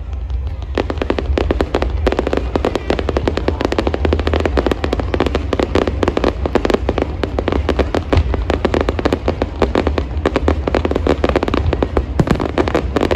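Fireworks display going off in a dense, rapid barrage of cracks and bangs, loud and almost continuous from about a second in, thinning out near the end.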